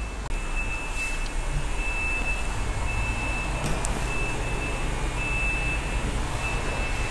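An electronic beeper sounds a single high tone about once a second, each beep about half a second long, over a steady low hum.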